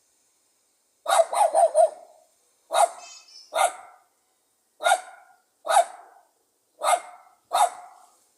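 Pug dog barking sharply: a quick run of four barks about a second in, then six more single barks, one every second or so.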